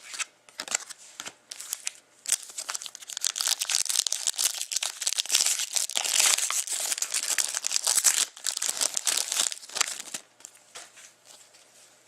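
Trading card pack wrapper being torn open and crinkled by hand, a dense crackling that is loudest in the middle and thins out near the end.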